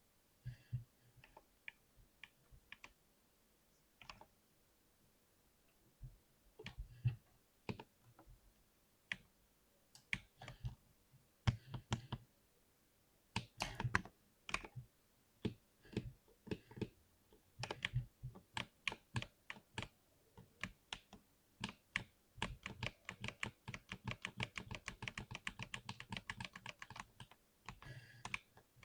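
Typing on a 60% keyboard: scattered single keystrokes and short runs at first, then fast, steady typing over the last several seconds.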